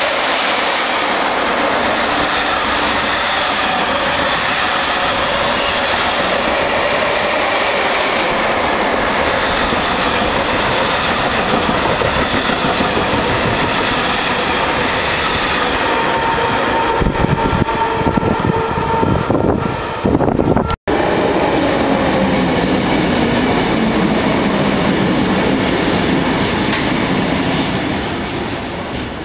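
Electric train hauled by an SNCB electric locomotive running past close by: steady rolling rumble and rail noise, with wheels clacking over rail joints as the coaches go by. After a sudden cut about two-thirds of the way through, another electric train is heard alongside, with a tone falling in pitch.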